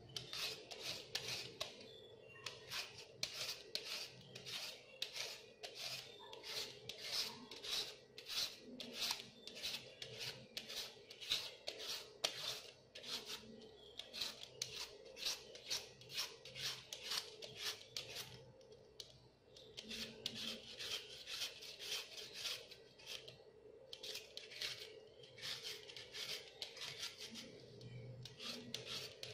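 Carrot being shredded into strips with a hand-held julienne peeler: repeated rasping scrape strokes, about two a second, with a few short pauses.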